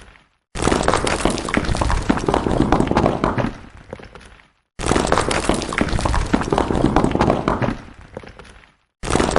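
Stones falling and clattering: a sudden dense rattle of many hard impacts that thins out and dies away over about four seconds. It repeats with a short silence between, starting twice in full and once more near the end.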